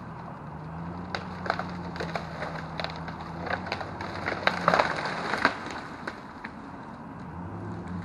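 Wood cracking and snapping in a string of sharp breaks, thickest about four to five and a half seconds in, over an engine running steadily.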